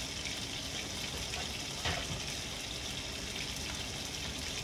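Marinated chicken sizzling steadily in a skillet over a gas burner, with one light knock about two seconds in.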